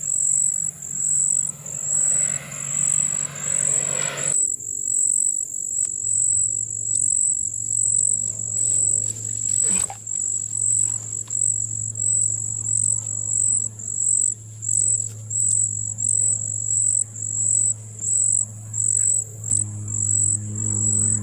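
An insect chirping steadily in a high, shrill note, about one and a half pulses a second, over a low steady hum.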